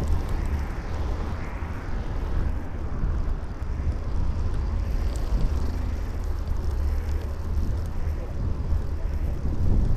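Wind buffeting the microphone of a bicycle-mounted camera as it rides along, a steady low rumble, with street traffic noise behind it.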